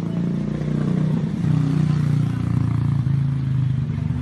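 A road vehicle's engine running steadily, getting a little louder about a second and a half in.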